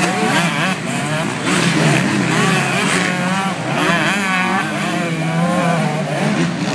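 Several MX2-class motocross bikes revving hard as they ride through a dirt corner and up a climb. Their engine notes overlap, each one's pitch rising and falling with the throttle.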